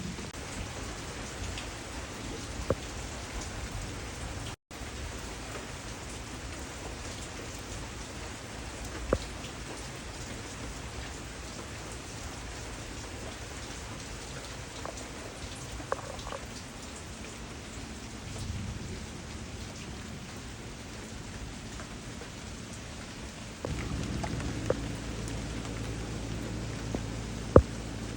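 Steady rain falling on leaves and surfaces, with a few sharp louder drops ticking now and then. Near the end a low rumble joins in and the sound gets a little louder.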